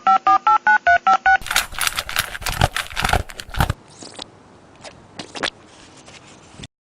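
Touch-tone telephone keypad tones, about seven digits dialed in quick succession. Then comes loud, dense crackling and crinkling noise, which turns quieter and cuts off suddenly near the end.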